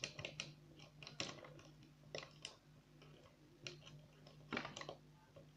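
Metal lock-picking tools, a lever pick and a welding-rod tension tool, clicking and scraping in the keyhole of a 3-lever lever lock while working for purchase on the bolt. Faint, irregular small clicks, about eight in all, some in quick pairs.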